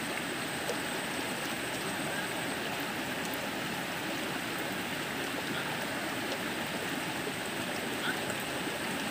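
River water flowing steadily, an even hiss with no change.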